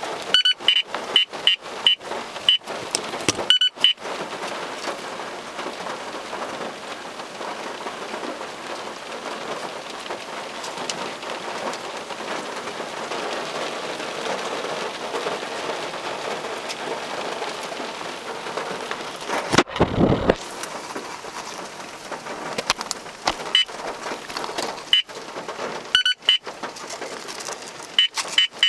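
Radar detector beeping in quick repeated tones for the first few seconds and again near the end. In between, rain patters steadily on the car's windshield, with a single thud about two-thirds of the way through.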